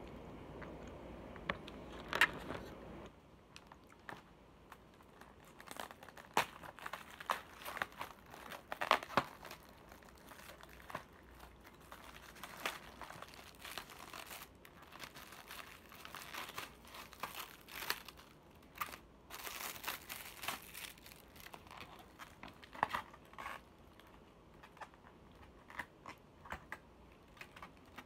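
Thin clear plastic takeout food container being handled and opened: irregular crinkling and crackling of the plastic lid and tray, with a low steady noise in the first three seconds.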